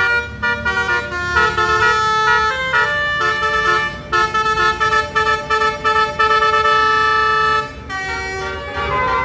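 Bus musical air horn (a basuri "telolet" horn) playing a tune: short notes and held notes stepping in pitch, several horn tones sounding together, with one long held note in the middle.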